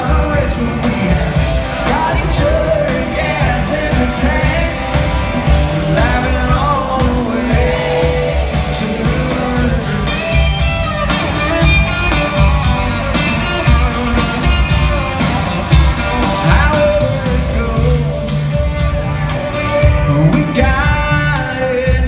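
Live country music from a full band on an arena stage, with drums keeping a steady beat under electric guitar, heard from the audience seats.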